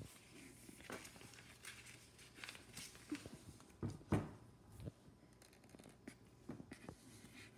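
Scattered small clicks, taps and rustles of hands handling things at a table. The loudest is a pair of knocks about four seconds in.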